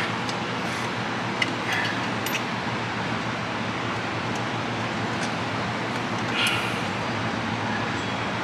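Steady hiss of garage background noise, with a few faint light clicks of drum brake shoe hardware being handled between one and two and a half seconds in.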